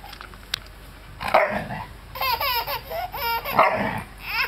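Black Labrador retriever giving two short, gruff barks, about a second in and again near the end, a sign of its annoyance at a toddler touching it. Between the barks the toddler squeals and laughs.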